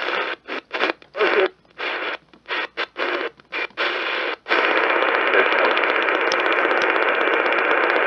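Static hiss from a Voyager Pro portable radio's speaker. For the first four seconds or so it cuts out again and again in short gaps, then runs on as a steady hiss.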